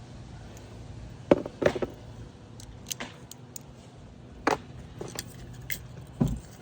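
Small metal clicks and taps, about six scattered ones, from carburetor parts and tools being handled on a work table while the carb is taken apart for cleaning. A steady low hum runs underneath.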